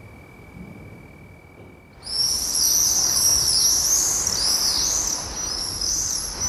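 A large flock of birds calling: many overlapping high chirps start suddenly about two seconds in and go on steadily and loudly. Before that there is only a faint steady high tone.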